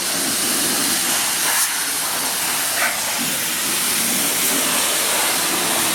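Pressure-washer wand at a coin-op car wash spraying a steady hiss of hot water onto an upturned BMX bike, blasting off the grime.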